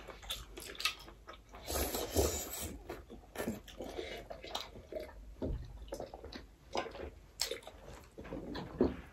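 Close-up eating sounds of two people chewing mutton momos and sipping, made up of many soft, scattered mouth noises and small clicks.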